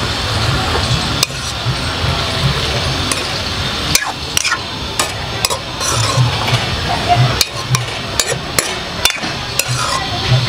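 A metal spoon stirs and scrapes greens around a metal kadai, with repeated sharp clinks against the pan. Under it runs a steady sizzle of the vegetables frying in oil and their own released water.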